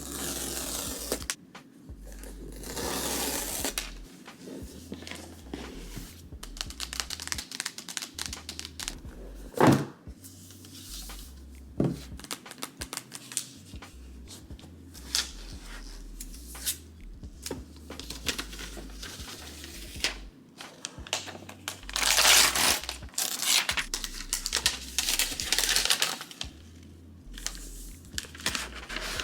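Crinkling and rustling of things being handled, with scattered clicks and two sharp knocks about ten and twelve seconds in.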